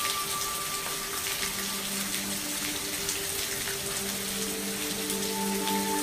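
Steady rain falling, a dense hiss of drops with scattered individual drips, with slow sustained music notes held underneath.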